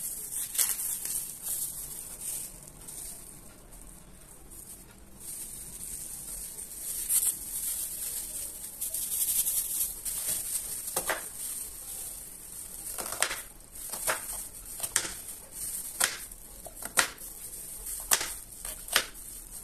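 Onion being peeled by plastic-gloved hands, with soft rustling of skin and glove. In the second half a knife slices the onion, knocking on a plastic cutting board about once a second.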